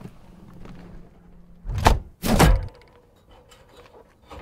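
Car door being shut: two heavy thunks about half a second apart, about two seconds in.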